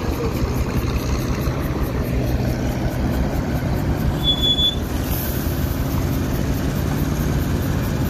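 Heavy diesel truck engine running steadily with a low drone, with a brief high-pitched squeal a little over four seconds in.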